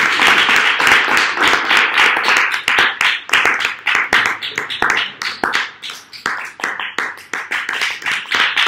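Audience clapping, dense at first and thinning to scattered separate claps over the last few seconds.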